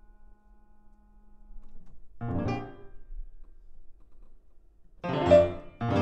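Grand piano played solo: a low held note fades out, then a loud chord is struck about two seconds in and rings briefly. Two more loud chords follow in quick succession near the end.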